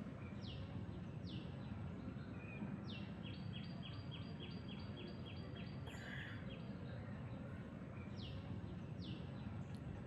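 Faint outdoor ambience with a steady low background hiss, and a bird calling: a few short falling whistles near the start and again near the end, and in the middle a quick run of about a dozen short notes at two alternating pitches, roughly five a second.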